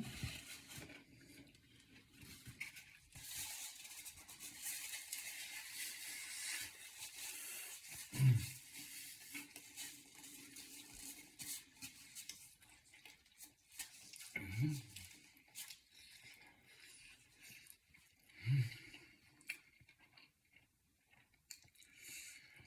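Someone eating a fried chicken sandwich: quiet chewing and crinkly handling noises, loudest a few seconds in, with three short low hums spaced several seconds apart.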